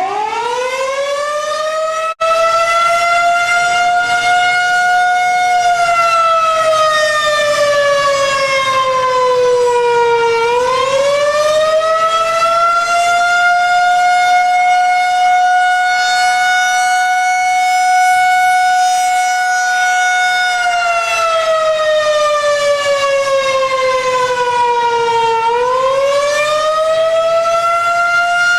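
Outdoor warning siren sounding a slow wail. It winds up quickly, holds a steady tone for about five seconds, falls in pitch over about five seconds, winds back up and holds for about eight seconds, then falls again and rises once more near the end. The sound drops out for an instant about two seconds in.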